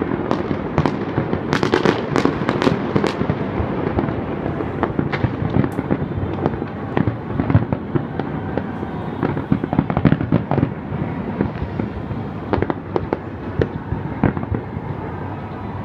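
A big fireworks display going off: a rapid, continuous barrage of bangs and crackling, with many shells bursting close together.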